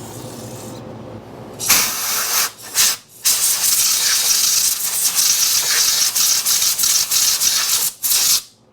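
Aerosol can of brake parts cleaner spraying into a motorcycle's rear brake caliper to flush out debris: a short hiss about two seconds in, then a long spray of about five seconds that cuts off suddenly near the end.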